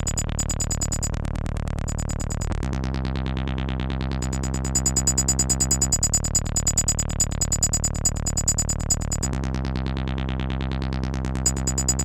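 Live electronic music from synthesizers: a sustained, droning chord under a fast, even ticking pulse, with no kick drum. The chord shifts about two and a half seconds in and again about nine seconds in.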